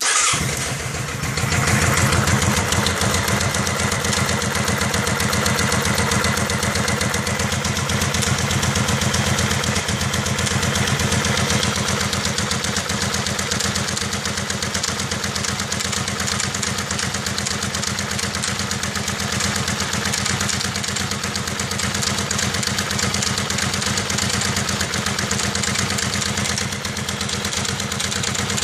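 Kawasaki Vulcan 750 V-twin engine starting cold, catching right away and then idling steadily, with a ticking noise on top of the running. The owner is not sure whether the tick comes from the automatic cam chain tensioner.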